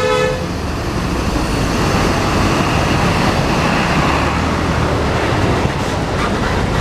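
Steady traffic noise of bus engines and road noise, with no clear single event. A bus horn chord cuts off just at the start.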